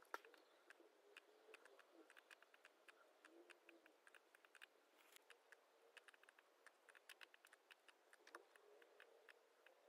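Faint, irregular clicking and tapping of a laptop keyboard and mouse in use, a few clicks a second.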